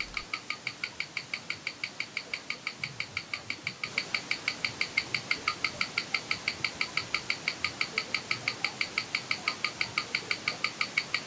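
Seagull ST1901 mechanical chronograph movement ticking, picked up and amplified by a timegrapher's microphone, at an even beat of about six ticks a second. The ticks get louder about four seconds in.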